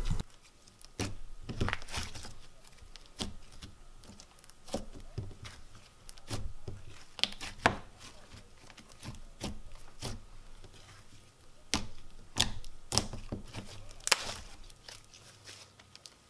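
Thick cloud-cream slime being kneaded, poked and stretched by hand, giving irregular sticky clicks and crackles, with a few sharper ones about halfway through and near the end.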